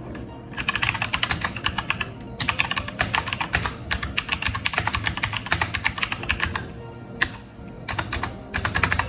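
Fast typing on a DareU EK87 mechanical keyboard with red linear switches: rapid runs of key clicks and clacks, with short pauses between bursts.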